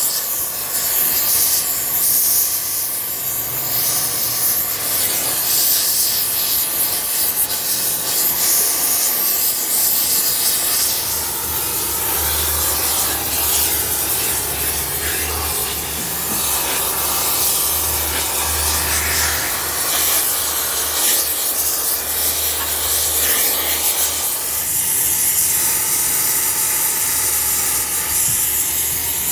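Gas welding torch flame hissing steadily as it heats a cast iron casting, the heating stage of a flame-spray weld repair. A low hum comes in about twelve seconds in.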